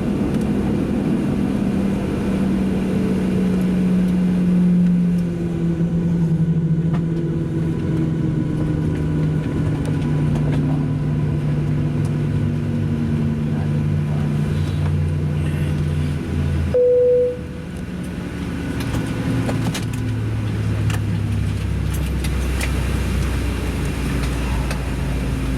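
Cabin sound of a Boeing 737-700's CFM56-7B jet engines winding down, a steady hum slowly falling in pitch. About 17 seconds in a single cabin chime sounds, after which the hum drops and a lower steady drone remains.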